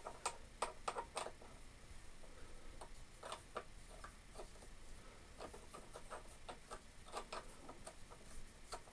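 Faint, irregular metal clicks and ticks, several a second, as a steel feed-handle spoke is twisted by hand into the hub of a Scheppach bench drill.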